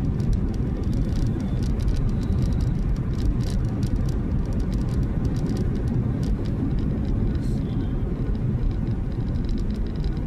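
Steady low rumble of a car driving on a wet highway, heard from inside the cabin, with many light ticks through the first several seconds.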